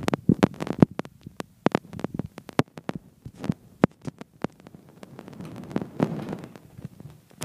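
Sharp, irregular thumps and knocks from kids playing mini basketball at an over-the-door hoop, a dozen or more in quick succession, loudest in the first second.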